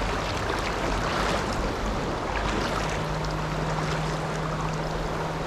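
Shallow river current rushing steadily over rocks, with a faint steady low hum joining about halfway through.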